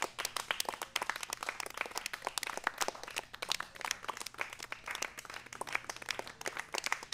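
Audience applauding, many hands clapping irregularly and without a break.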